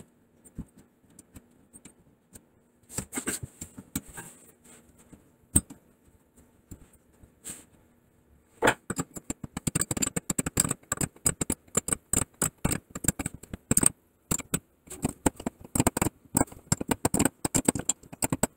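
Metallic clicking and scraping as a stainless steel supply line's compression nut is threaded onto a chrome angle stop valve and turned with a wrench. A few scattered clicks at first, then from about halfway a dense, quick run of clicks that lasts to the end.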